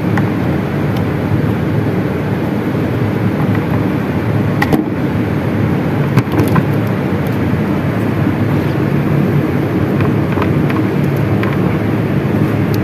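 Steady, loud low hum like a running engine or machine, with a few light clicks and taps about five and six seconds in.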